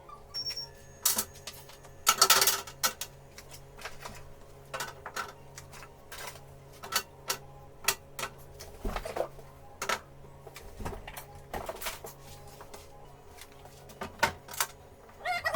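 Irregular clicks and knocks of containers and food items being handled and set down while a fridge is cleaned and organized, with a brief louder rustle about two seconds in.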